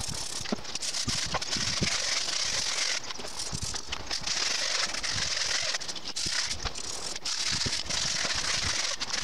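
Crackling and rustling of a wet mesh mower grass bag being sprayed and rubbed by hand, with scattered small clicks over a steady hiss.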